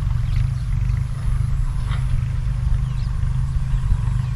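Wind buffeting the microphone: a steady, ragged low rumble, with a few faint high chirps over it.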